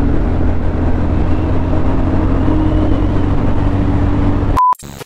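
Motorcycle riding along a road: steady engine hum under a low wind rumble. Near the end the sound cuts out abruptly, with a short high beep and a moment of near silence.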